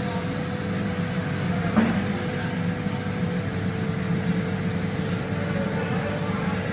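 Electric motor on an ABB variable-speed drive running, with a steady low hum and a steady higher tone above it. A single short knock about two seconds in.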